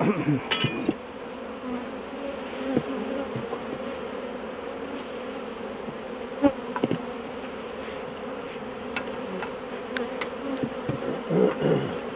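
Honeybees buzzing around an opened hive: a steady, even drone. A few short knocks of wooden hive frames and boxes being handled cut through it, the strongest near the start and about six and a half seconds in.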